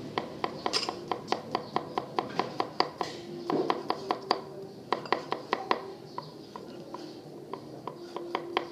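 Knives chopping on round wooden chopping boards: a cleaver on pork and a knife mincing garlic cloves. It is a quick, even run of sharp knocks, about five a second, that thins out about six seconds in and picks up again near the end.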